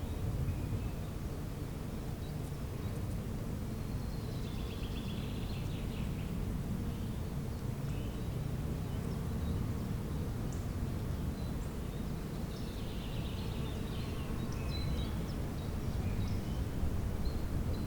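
Spring-morning outdoor ambience: birds singing faintly in two short spells over a steady low rumble.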